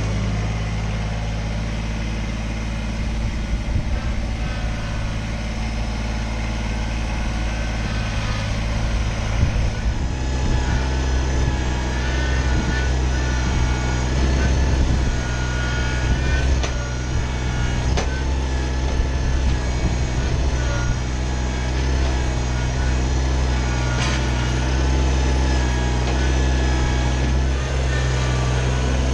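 Kubota BX25 sub-compact tractor's three-cylinder diesel engine running steadily, its note shifting and filling out in the low end about ten seconds in.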